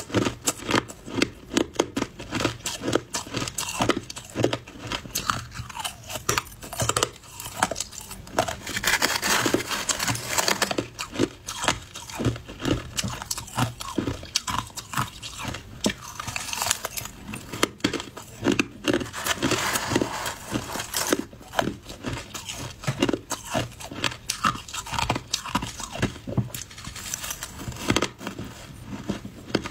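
Close-up crunching and chewing of mouthfuls of shaved ice: a dense, irregular run of crisp crackles and snaps, with thicker stretches of crunch now and then.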